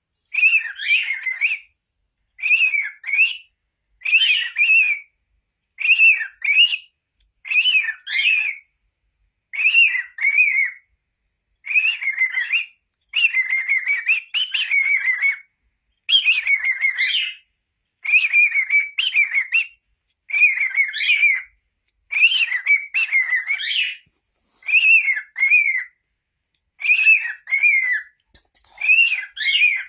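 Pet cockatiel whistling a short warbling phrase over and over, roughly every two seconds, with brief silences between the phrases.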